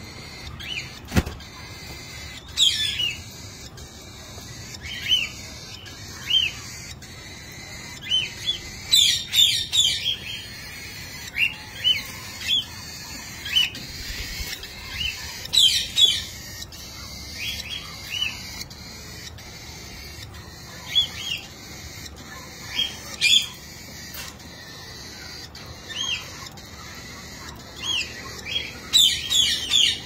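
Cockatiels chirping over and over in short calls, with louder clusters of calls every several seconds.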